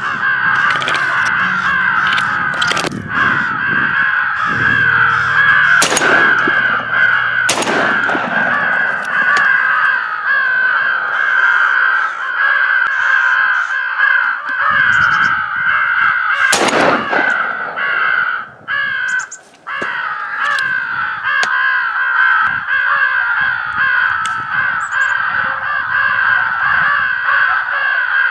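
A crowd of American crows cawing non-stop, overlapping calls, with a few sharp cracks cutting through the din.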